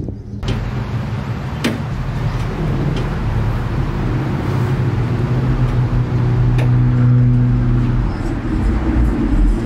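A car engine running, its pitch climbing a little partway through and then holding steady, with a couple of sharp clicks.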